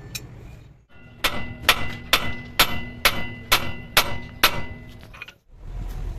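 A heavy hammer striking the steel steering knuckle of a truck's front axle eight times, about two blows a second, each blow leaving a ringing metallic tone.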